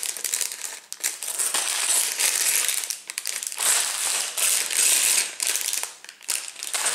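Clear plastic LEGO parts bags crinkling and rustling as they are handled and lifted, with the loose plastic pieces clicking inside. It comes in several bursts with short lulls between.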